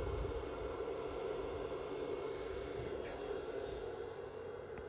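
A 4000 W power inverter wired to a car's 12 V battery runs under load, driving a borehole pump, with a steady hum.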